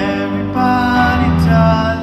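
A man singing to his own grand piano accompaniment in a live performance, holding sung notes over piano chords.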